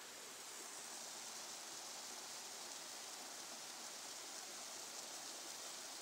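Small waterfall pouring steadily into a rock plunge pool, a little louder after the first second.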